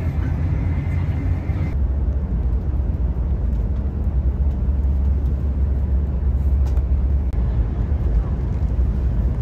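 Steady low rumble of a Shinkansen passenger cabin with the train running at speed. A faint high whine stops suddenly about two seconds in.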